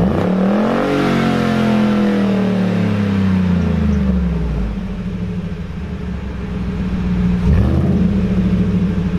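2013 Ford Raptor's 6.2-litre V8 running through a freshly fitted BAmuffler Dirty Deeds exhaust: revved hard at the start and slowly falling back to idle, then blipped once more about seven and a half seconds in.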